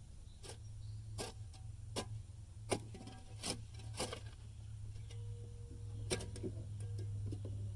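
Sharp clicks, about one every three-quarters of a second for four seconds, then a few more scattered ones later, over a steady low hum.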